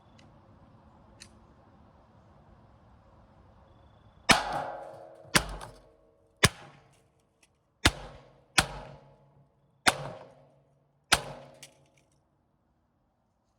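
Marlin Model 60 semi-automatic .22 rifle fired seven times, about a second apart, each shot a sharp crack with a short echo, starting about four seconds in.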